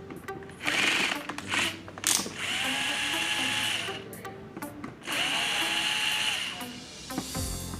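Cordless power driver whining in two runs of about two seconds each, its pitch rising as the motor spins up, unscrewing the casing of a wireless rear-speaker receiver to open it.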